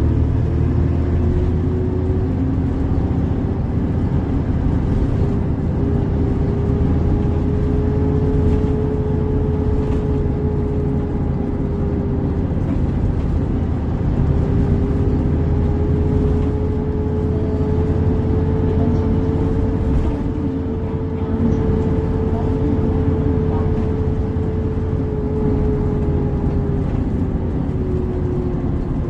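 Hyundai New Super Aerocity bus's D6HC H-engine, a Euro 6 straight-six diesel, running, heard from inside the passenger cabin: a steady low drone with a thin whine that slowly rises and falls in pitch.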